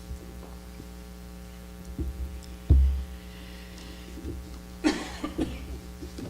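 Steady electrical mains hum with a few short low thumps, the loudest nearly three seconds in, and a brief rustle about five seconds in.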